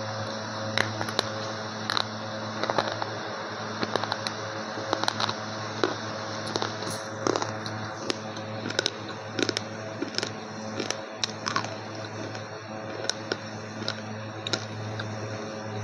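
Slate pencil being bitten and chewed close to the microphone: irregular sharp crunches and snaps, several a second at times, over a steady low hum.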